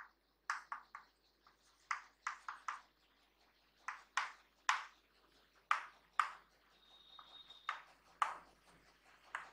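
Chalk writing on a blackboard: a string of short, irregular taps and scrapes as the letters are written.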